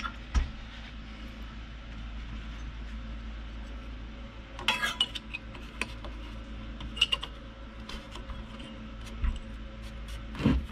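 Light metallic clinks and scrapes as hands fit the gas tank and its mounting against a small snowblower engine, the loudest cluster about five seconds in, over a steady low hum.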